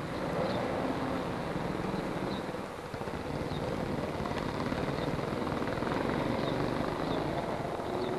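A motor car's engine running steadily.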